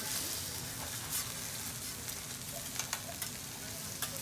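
Egg sizzling on a hot flat-top hibachi griddle, a steady hiss, while a metal spatula scrapes across the steel and clicks against it a few times as the egg is scrambled.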